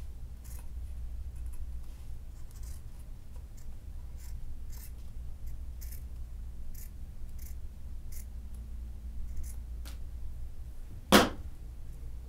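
Scissors snipping through a tennis overgrip to trim off its excess end: a series of short, irregular snips, with one louder noise near the end.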